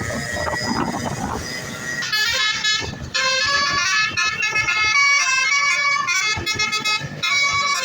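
Bus basuri telolet horn, a multi-trumpet musical air horn, playing a fast stepping melody of bright tones that starts about two seconds in, after a stretch of street noise.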